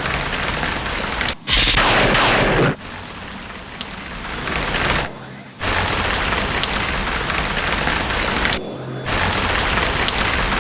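Steady heavy rain with a loud, sharp thunderclap about a second and a half in that lasts about a second before fading. The rain cuts out briefly twice, near the middle and a little before the end.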